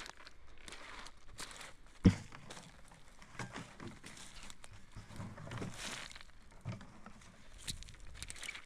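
Irregular rustling and crunching handling noises, with one sharp loud knock about two seconds in.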